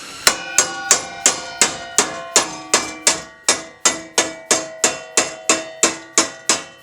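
Hammer blows on a thick steel plate being bent by hand, a steady run of about three strikes a second, each leaving a short metallic ring.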